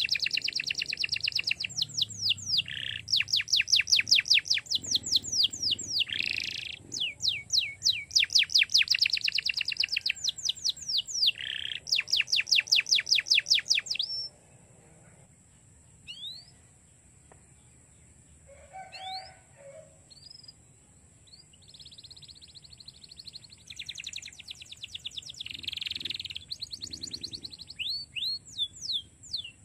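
Domestic canary singing in fast trills of quickly repeated sweeping notes. It breaks off about halfway, leaving only a few scattered chirps, and starts trilling again near the end.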